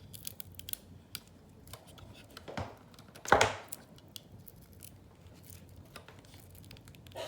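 Hands handling a webcam and its plastic packaging: scattered small clicks and crinkling rustles. There is one louder sharp rustle or knock about three seconds in.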